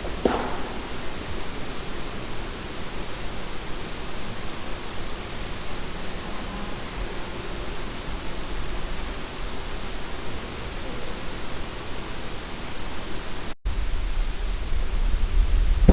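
Steady hiss of a heavily amplified night-time field recording, with one brief faint sound just after the start. About 13.5 seconds in, the sound cuts out for an instant and comes back with a stronger low rumble under the hiss.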